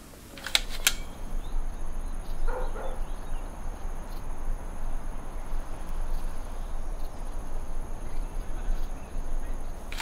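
Outdoor ambience with wind rumbling on the microphone, after two sharp clicks about half a second in.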